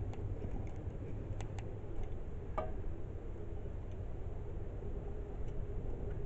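A few faint clicks and one short falling squeak about two and a half seconds in, from hand work on the generator's fuel lines and fittings, over a steady low rumble.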